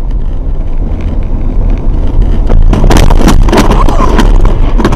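Road noise and engine rumble inside a moving car, then from about two and a half seconds in a burst of loud bangs, clattering and scraping from a nearby crash as a vehicle rolls over onto its side.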